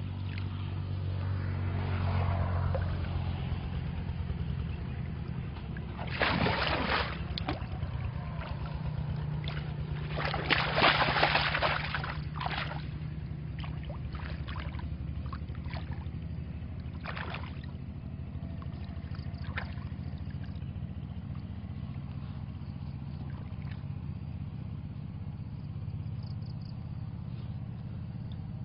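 Shallow muddy water splashing and sloshing as hands work a bamboo plunge basket, with two louder bouts of splashing around six and eleven seconds in, then several short splashes. A steady low hum runs underneath.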